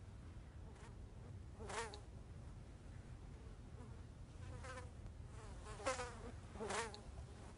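Flies buzzing in brief passes, about four times, each buzz bending in pitch as it goes by, over a faint steady low hum.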